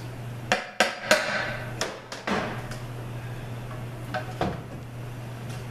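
Ford A4LD transmission's steel oil pan being worked loose and lifted off the case: a quick run of sharp metallic clanks and knocks in the first two and a half seconds, and two more about four seconds in, over a steady low hum.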